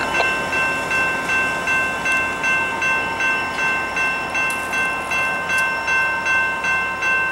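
Railroad grade-crossing bell ringing in a steady, even rhythm of about two strikes a second, over the running of a passenger train led by an EMD F59PH diesel locomotive as it pulls away.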